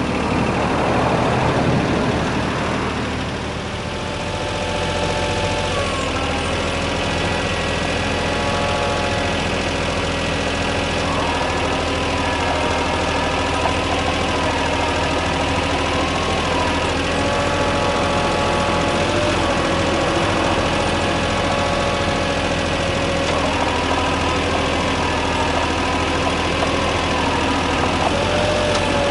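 Yanmar VIO20-1 mini excavator's diesel engine running steadily, with a whine that steps up and down in pitch several times. A rushing noise rises over it in the first few seconds.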